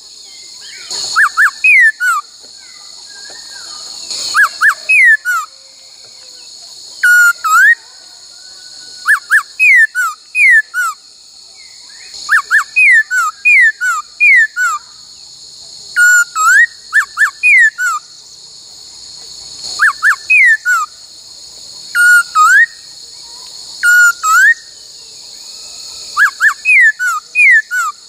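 Laughingthrush (khướu) whistling the 'bắt cô trói cột' phrase, the Indian cuckoo's call, in groups of three or four clear, mostly falling notes repeated every two to three seconds, over a steady high-pitched hiss.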